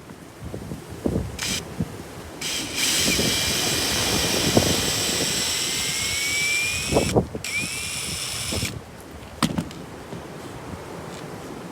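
Power drill driving a screw into the doghouse roof: the motor whine starts about two seconds in and rises slowly in pitch for about four seconds. It stops briefly, runs again for about a second, and cuts off, with a few knocks around it.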